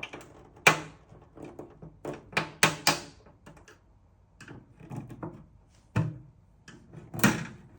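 Screwdriver levering at the slots of an Indesit washing machine's plastic filter access panel: a string of sharp plastic clicks and knocks, with a cluster of three a little over two seconds in and another knock near the end.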